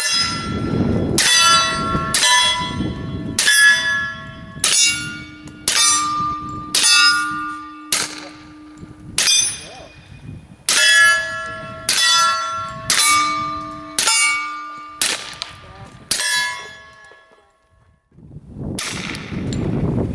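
Suppressed .45 ACP FN FNP-45 pistol firing a steady string of about twenty shots, each one answered by steel targets clanging and ringing for about a second. There is a short pause about halfway through.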